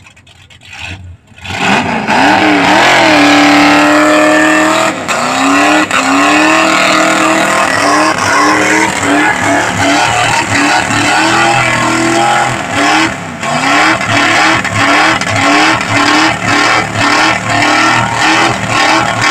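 Ford Maverick's 302 V8 revving hard during a burnout, with the spinning rear tyre squealing. About a second and a half in the revs climb and hold high, then pulse up and down quickly, about one and a half times a second.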